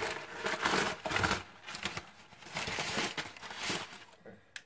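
Crumpled newspaper packing paper crinkling and rustling as it is handled and pulled out of a cardboard box, in several bursts that die down near the end.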